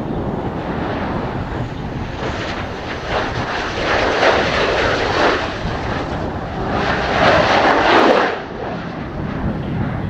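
F/A-18C Hornet's twin F404 turbofan engines running as the jet passes low on landing approach with gear down. The jet noise swells around three to five seconds in, grows louder again around seven to eight seconds, then drops off sharply. Strong wind rumbles on the microphone throughout.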